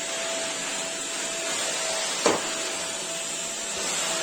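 A small vacuum cleaner running steadily, a constant hiss with a steady whine, and a single knock about two seconds in.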